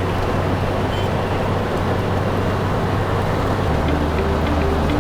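Steady road and engine noise from a moving vehicle, heard from inside it, with a deep low hum that shifts slightly near the end.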